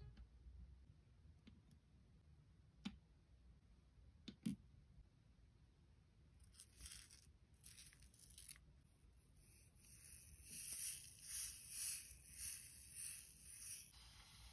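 Two sharp clicks of nail tools set down on a clear acrylic tool rest, then tiny nail-art beads and micro pearls rattling inside round plastic dispenser wheels as they are handled, pulsing about twice a second near the end.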